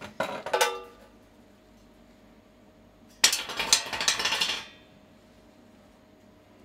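Forged steel log basket clattering against a concrete floor as it is moved and set down: a short clank in the first second, then a longer metallic clatter about three seconds in.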